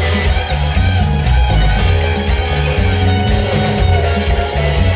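Background music: an instrumental track with guitar over a steady, repeating bass line.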